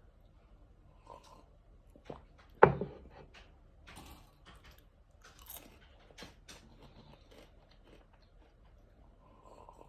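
Someone chewing popcorn with crunching bites. There is one loud, sharp click about two and a half seconds in, then a run of crackly crunches over the next few seconds.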